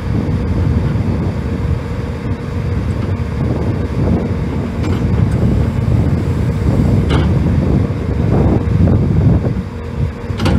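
A 2012 Kobelco crawler excavator's diesel engine running steadily while its hydraulics swing the arm and curl the bucket. Wind buffets the microphone.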